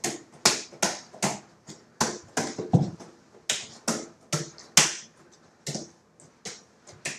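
A quick run of sharp slaps, about two to three a second: hands catching and smacking a 5-pound soft weighted ball as it is tossed between two people.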